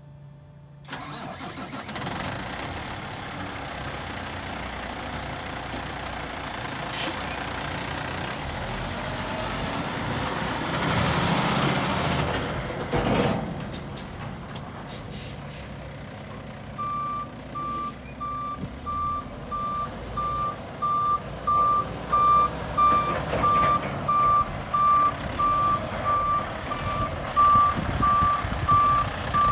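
Dump truck's Cummins ISX15 diesel starting up about a second in and running, building up as the truck pulls away, with a sharp hiss-like noise around the middle. From a little past halfway the truck's back-up alarm beeps steadily at an even pace while it reverses over the engine noise.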